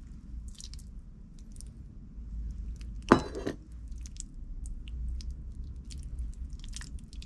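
Soft cooked fruit squelching as it is squeezed and mashed by hand in a small stainless saucepan, with scattered short wet clicks. About three seconds in there is one sharp metallic clink with a brief ring.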